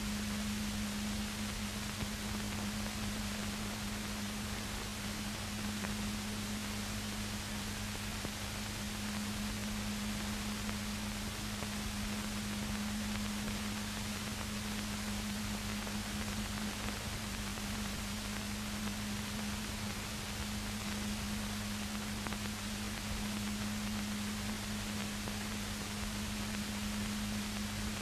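Steady hiss with a constant low hum and no other sound: the background noise of an old 1970s film soundtrack.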